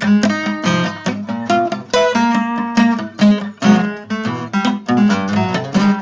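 Background music: acoustic guitar playing a quick run of plucked notes.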